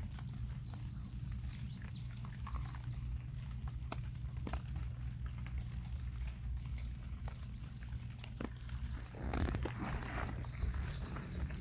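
Rabbits eating, with scattered sharp crunching clicks of chewing and a denser rustling, crunching patch near the end.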